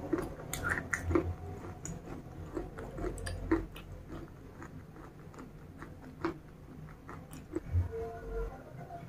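Close-miked chewing of broken slate pieces coated in red paste, with scattered sharp crunchy clicks, thickest in the first few seconds.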